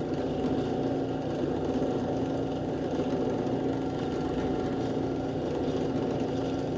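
Power drill running steadily with a small bit, pre-drilling a pilot hole in the ball of a cell phone mount.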